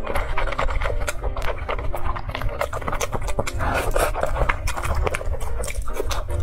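Close-miked eating: noodles slurped through the lips and chewed wetly, with a dense, irregular run of moist clicks and sucking noises.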